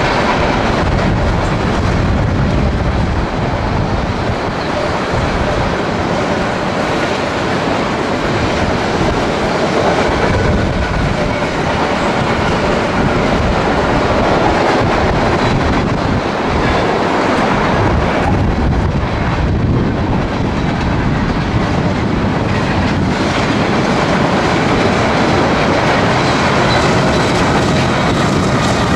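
Freight train's covered hopper cars rolling past, their steel wheels clattering over the rail joints and the crossing in a steady, loud rumble.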